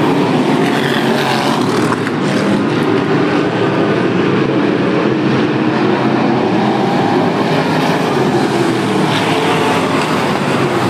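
A field of IMCA Northern SportMod dirt-track race cars running at speed, their V8 engines blending into one steady, loud drone.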